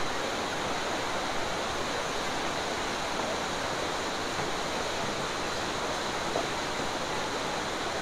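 Fast-flowing mountain river rushing over rocks: a steady, even rush of water.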